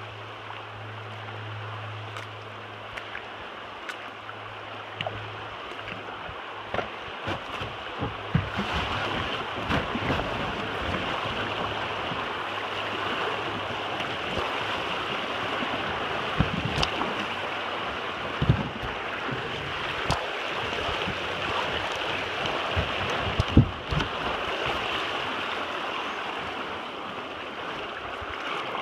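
Rushing water of small, shallow river rapids around a kayak, getting louder about eight seconds in as the boat moves into them, with scattered splashes and knocks from the paddle strokes.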